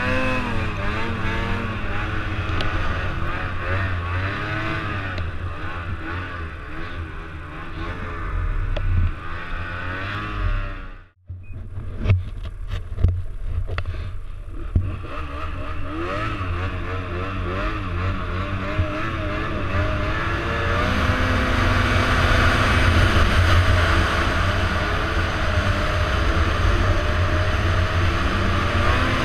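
Snowmobile engine revving up and down as the sled rides through snow. About 11 seconds in the sound cuts off abruptly, a few sharp clicks follow, and then the engine runs again, with a rushing noise growing louder through the last third.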